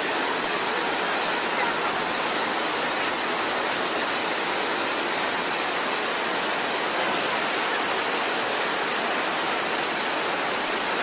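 Heavy rain pouring off market awnings into flowing floodwater: a steady, even rush of water.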